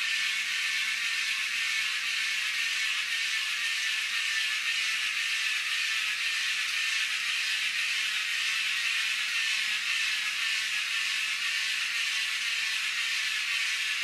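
Toy wall-climbing car's small electric motor driving its two suction pumps, a steady high-pitched whir as it climbs a window pane.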